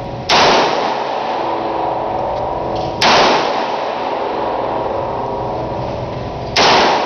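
Three .38 Special handgun shots, about three and a half seconds apart, each with a short echo in the indoor range lane, over a steady background noise.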